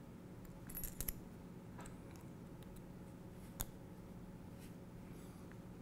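A few faint, sharp metallic clicks from a 2 mm Allen wrench and small M3 button head screws being worked while the mounting plate is fastened to a small electric motor, over a low steady hum.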